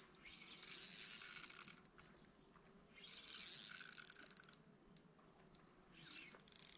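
Spinning reel whirring and clicking in three short bursts with pauses between, as a hard-pulling asp is played on the line.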